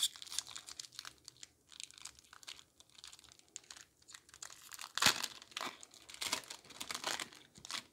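Foil trading-card booster pack wrapper crinkling and being torn open by hand: a run of irregular crackles and rips, loudest about five seconds in.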